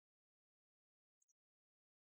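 Near silence, broken only by two very faint clicks just after a second in.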